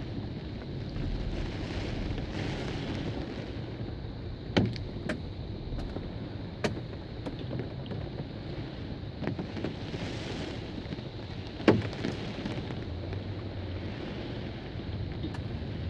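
Steady heavy rain with wind, broken by two sharp loud knocks, about four and a half seconds in and near twelve seconds in.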